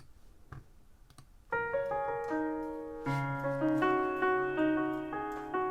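A few faint clicks, then about a second and a half in piano chords begin, with a new chord about three seconds in, the notes held and ringing. This is the keyboard accompaniment of a song being played back.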